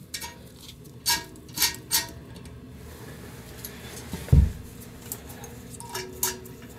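Metal nuts clinking against the mounting studs and porcelain of a toilet tank as they are threaded on by hand, a few short sharp clicks, with one dull thump a little past four seconds in.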